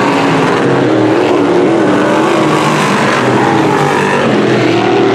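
Several dirt-track sportsman modified race cars' V8 engines running hard at racing speed, their pitch rising and falling as they lap the oval.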